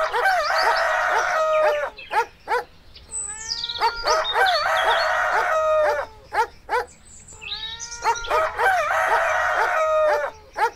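AI-generated animal sound effects played on a soundboard. A rooster-and-birdsong clip repeats three times, about every four seconds, with the rooster crow held under many small bird chirps, and short chirps and clicks between the repeats.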